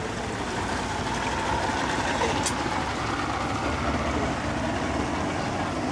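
Boat engine running steadily at low speed, a continuous low hum.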